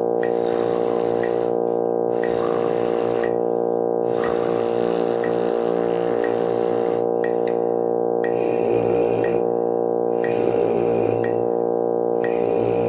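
Brass mouthpiece buzzing over a sustained drone accompaniment, with a metronome ticking. The drone holds the whole time, and the wavering buzz of the mouthpieces comes in during the last few seconds.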